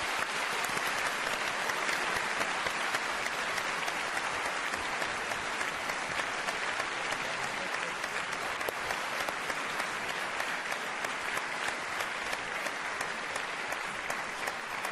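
Large audience applauding, a dense, steady round of clapping that eases slightly near the end.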